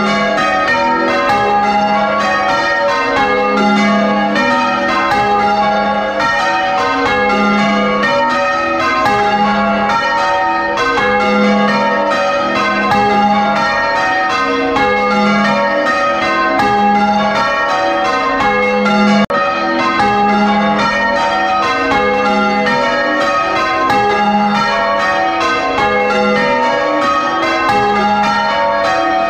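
A ring of six church bells, tenor 9 cwt in A-flat, change ringing full circle, heard close up in the bell chamber. It is a continuous, evenly paced stream of loud strikes, with the tenor's low hum coming back about every two seconds.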